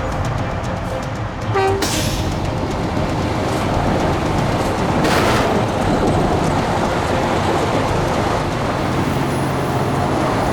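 Heavy diesel truck engines running hard under load, with a brief pitched toot and two short hissing bursts; background music under it.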